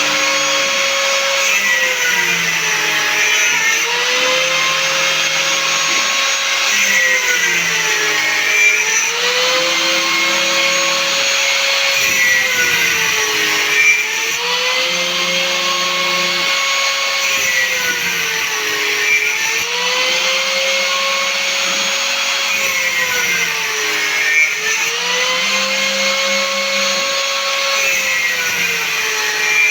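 CNC router cutting a guitar fretboard: a steady motor whine whose pitch sags and recovers about every four seconds.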